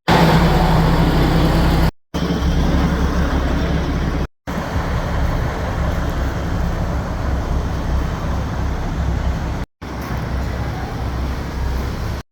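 A vehicle's engine running with steady rumble and road or wind noise, broken by short cut-outs four times.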